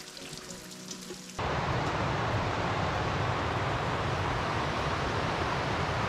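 Quiet background music, then about a second and a half in an abrupt cut to a loud, steady rushing of wind and a mountain stream.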